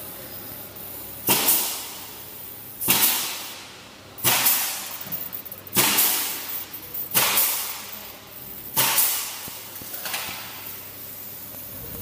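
Fiber laser cutter with automatic feeder cycling on silver strip: seven sharp bursts of air hiss, about one every second and a half, each fading quickly.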